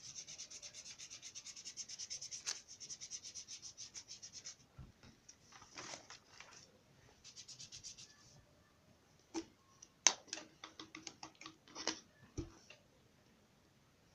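Quick back-and-forth rubbing strokes of colour being worked onto paper, about six or seven a second, stopping after four or five seconds and coming back in short runs. Near the end, a string of light clicks and taps as the paper and the board under it are shifted.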